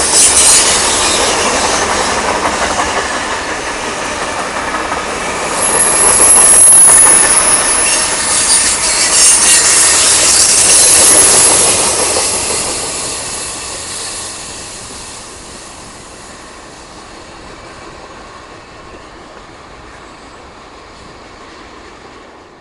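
Norfolk Southern freight train cars rolling past, wheels clattering over the rail joints with a high wheel squeal. Loudest about halfway through, then fading steadily over the last ten seconds as the train draws away.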